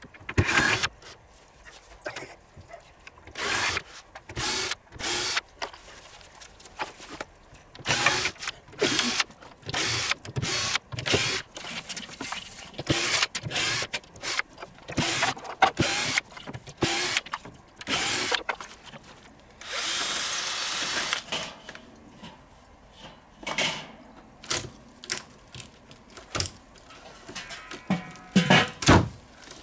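Cordless drill-driver running in short repeated bursts, backing screws out of a shed's wooden cladding boards, with a few louder knocks near the end.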